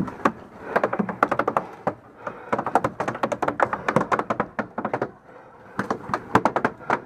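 Several bursts of rapid paintball marker fire, each a quick run of sharp pops at about a dozen shots a second, with short pauses between bursts.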